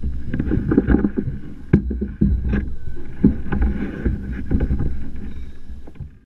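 Wind rumbling on the microphone mounted on a fishing kayak, with repeated knocks and clatters against the kayak's plastic hull as a gar and the fishing rod are handled on it; one sharp knock comes just under two seconds in.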